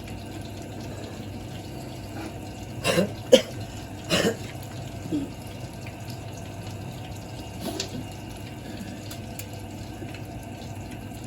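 Pork frying in a wok, a steady sizzle of the meat in its own fat, with a few short knocks of a utensil against the pan about three to five seconds in and once more near eight seconds.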